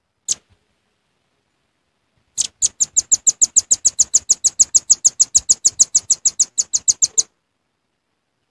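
Velvet-fronted nuthatch calling: a single sharp high note, then after a pause a long fast trill of sharp high chips, about eight a second, lasting nearly five seconds and stopping abruptly.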